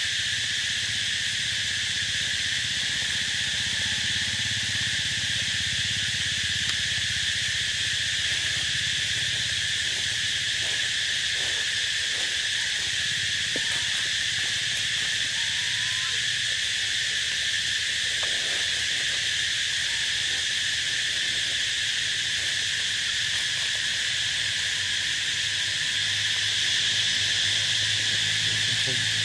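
Dense, steady chorus of insects, an unbroken high-pitched hiss, over a low steady hum.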